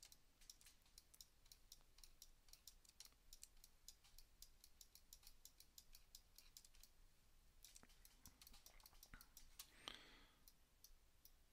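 Near silence with faint, irregular clicking from a computer mouse and keyboard, and a soft short rush of noise about ten seconds in.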